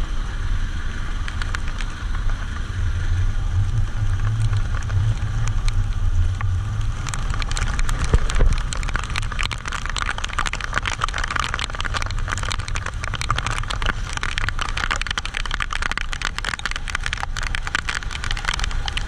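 Outrigger boat's engine running steadily under rain, with the rain pattering much more densely from about seven seconds in.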